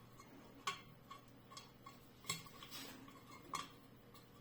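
Faint, scattered metallic clicks and light taps of small steel bolts being handled while refitting a sewage pump's cover, three of them sharper than the rest.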